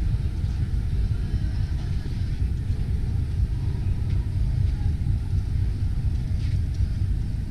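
Steady low rumble of a crowded exhibition hall's background noise, with no distinct event standing out.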